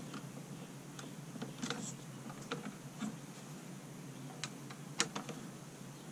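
Screwdriver turning a light switch's terminal screw down onto a wire: scattered small metallic clicks and ticks at irregular intervals, the sharpest about five seconds in.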